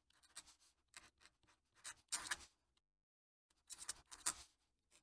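Fountain pen nib scratching on paper as a signature is written in quick strokes. Faint, with the strongest strokes about two seconds in and a short pause just before the last few strokes.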